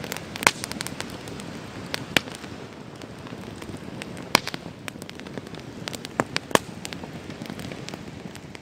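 Wood fire burning in a pedestal campground grill, crackling with sharp pops scattered every second or two, the loudest about half a second in and about four and a half seconds in.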